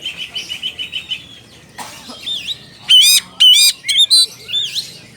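Oriental magpie-robin (kacer) singing its challenge song to a rival: a fast chattering run of short high notes in the first second, then loud, sharp upswept notes about three seconds in, mixed with whistled slurs.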